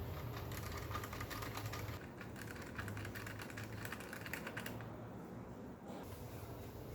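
A quick run of many light clicks, lasting a few seconds and stopping near the end, over a steady low hum.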